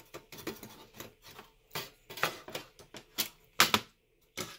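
Sheet-metal chassis sections of a car stereo head unit being pulled apart and handled: a string of light metallic clicks and clacks, with a few sharper ones in the second half.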